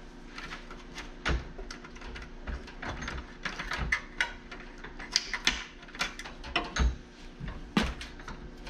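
Irregular clicks, knocks and clatter of hand tools working on the parts of an old dehumidifier being taken apart for scrap, with a few louder knocks spread through.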